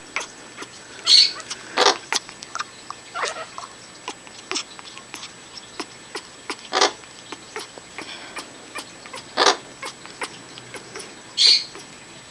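An African grey parrot making its odd noise: a run of sharp clicks throughout, with louder short noisy bursts every couple of seconds, two of them higher-pitched.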